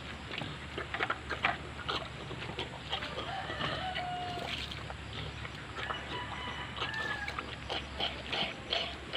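A pig chomping and slurping feed from a metal bowl in quick irregular clicks, with chickens clucking now and then.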